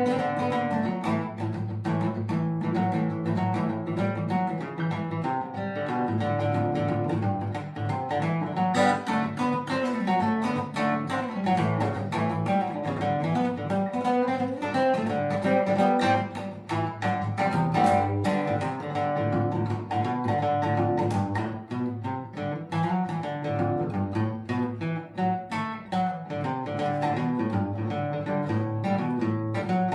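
Acoustic guitar music, a steady stream of plucked notes and chords.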